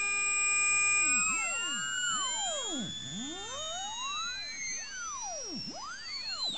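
Loudspeaker driven with an electronic test tone to excite a home-made wok hang drum: a steady many-pitched tone for about a second, then a tangle of tones gliding up and down past one another in a warbling, siren-like sweep.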